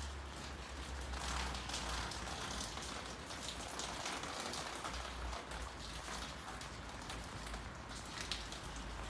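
Steady rain pattering.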